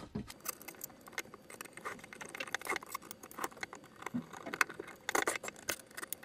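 Small Phillips screwdriver driving screws into a plastic case fan's frame to mount it on a water-cooling radiator: a scattered run of light clicks, ticks and scrapes as the screws are turned and the parts handled. The screws are only being started, not yet tightened.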